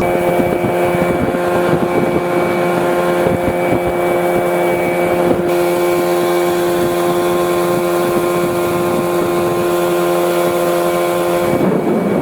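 Mercury 20 EFI four-stroke outboard motor pushing an inflatable boat at a steady cruising speed, a constant engine drone with water and wind noise over it. The steady note breaks up near the end.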